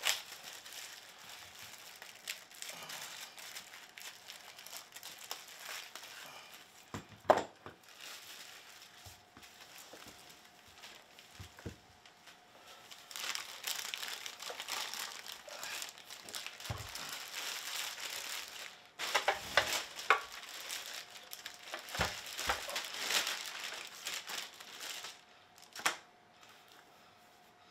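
Clear plastic wrapping crinkling and rustling as it is pulled off and handled, with a few sharp knocks in between, the loudest about seven seconds in.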